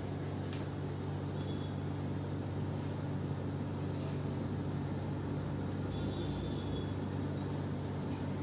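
A steady low hum over a continuous noisy background, with a few faint clicks in the first three seconds.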